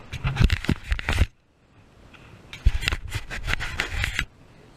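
Handling noise on a chest-mounted GoPro: rapid crackling scrapes and knocks of hands and a fish rubbing against the camera, in two bursts with a near-silent gap of about a second and a half between them.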